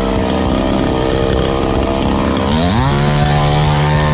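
Two-stroke gasoline chainsaw running at a steady idle, then revved up about two-thirds of the way through, its pitch rising quickly and holding at the higher speed.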